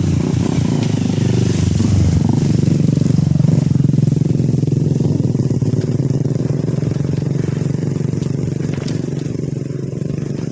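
An engine running steadily, growing louder over the first few seconds and slowly fading toward the end.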